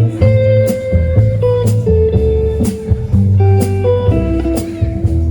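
A live trio playing an instrumental: a guitar plays a lead line of held notes that bend slightly, over a low bass line and drums keeping a steady beat of about two hits a second.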